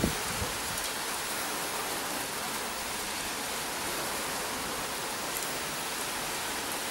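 Heavy rain falling in large drops, a steady even hiss.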